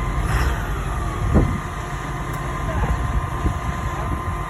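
Heavy machinery running: a steady low engine rumble with a steady high whine over it. A short falling whine comes near the start, and there is a single knock about a second and a half in.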